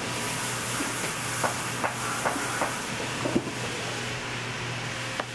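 Steady workshop hum and hiss, with a few light, evenly spaced clicks from hand tools working a tacked leather boot upper on the last.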